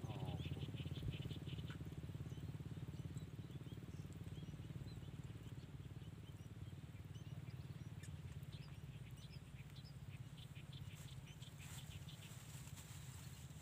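Faint outdoor ambience: a steady low rumble under the faint, scattered chirping of small birds.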